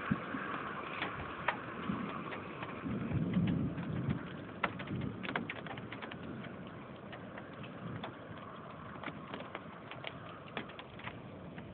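Thunderstorm ambience: a steady rush of wind and rain with scattered sharp raindrop taps, and a low rumble swelling about three to four seconds in.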